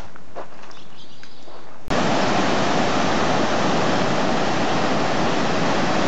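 Floodwater rushing across a road in a loud, steady torrent, cutting in suddenly about two seconds in. Before it there is only a quieter hiss with a few faint knocks.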